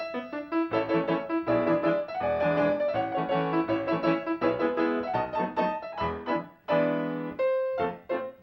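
Piano music, a brisk tune of quick, short notes that dips briefly a couple of times near the end.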